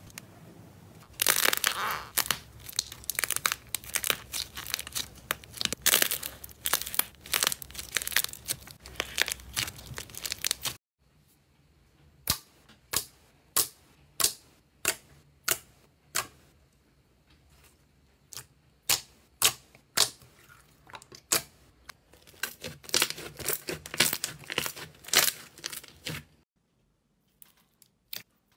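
Slime being squeezed, pressed and poked by hand, making crackling and popping sounds. It starts as dense crackling, then gives way to separate pops about twice a second, then returns to dense crackling.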